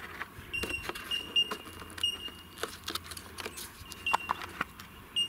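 Hands moving the flight battery aft inside the battery bay of an electric RC model plane: scattered light clicks and knocks as the pack and its wiring are shifted. A faint, high, thin tone comes and goes.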